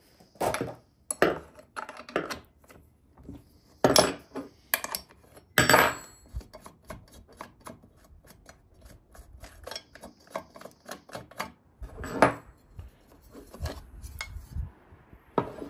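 Clatter of small hard parts being handled and set down on a workbench. There are several loud knocks in the first six seconds and another near the end, with many light clicks and taps between them.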